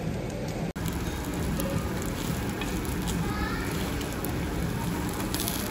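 Beef ribs, pork belly and chicken sizzling on a paper-lined tabletop barbecue griddle: a steady sizzle with faint crackles, and light clicks of metal tongs turning the meat.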